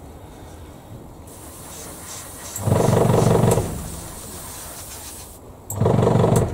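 Small airbrush compressor motor running in two short bursts of about a second each, a low hum, with a fainter hiss of air from the airbrush between them.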